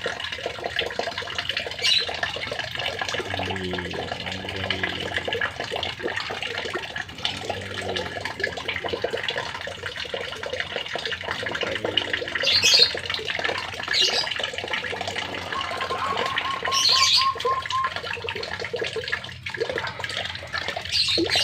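Water running steadily, with a lovebird chirping in short calls several times over it.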